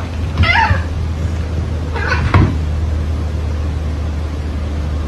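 A cat meows once, a short call that rises and falls, about half a second in. Later there is a brief rustle and a single thump about two and a half seconds in, over a steady low hum.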